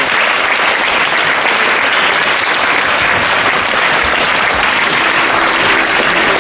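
An audience applauding: many people clapping steadily and evenly.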